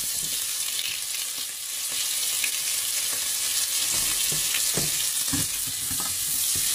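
Chopped red onion sizzling in very hot butter in a stainless steel pot, a steady hiss, with a few light knocks of a spoon stirring it against the pot from about four seconds in.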